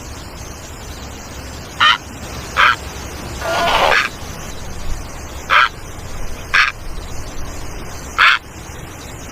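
Great egret calling: six short calls spread a second or so apart, one of them, about three and a half seconds in, longer than the others.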